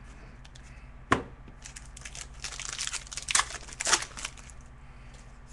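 A trading-card pack wrapper being torn open and crinkled, with a sharp click about a second in and a spell of crackling in the middle.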